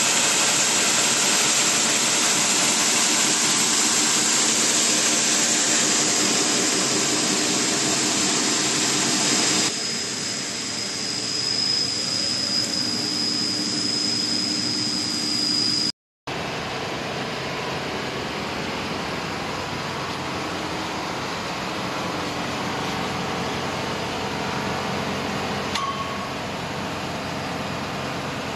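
Wide belt sander running: a loud steady hiss and motor noise, with a thin high whine joining it about six seconds in. The sound drops out for an instant about sixteen seconds in, then carries on as a quieter, even machine hum.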